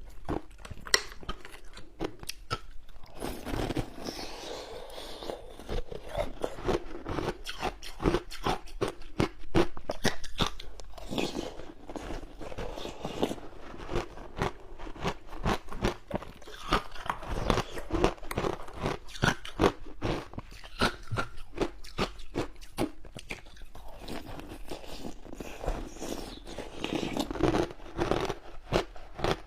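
A person biting and chewing frozen passion fruit ice: continuous rapid crunching, packed with sharp cracks throughout.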